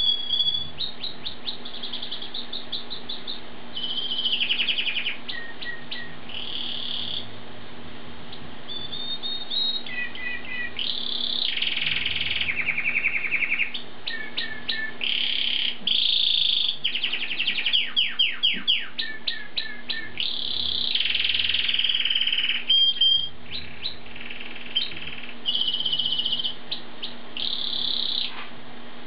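Asian pied starling (jalak suren) singing a long, varied song of rapid trills, repeated chattering notes and short whistles, with brief pauses between phrases.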